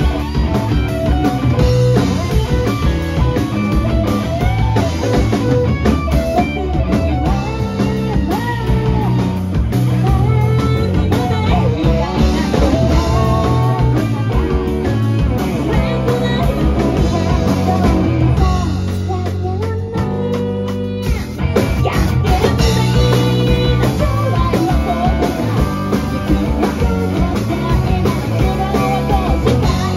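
Live rock band playing: electric guitars, bass and a drum kit, with a woman singing. About two-thirds of the way through, the band drops briefly to short, choppy hits, then comes back in full.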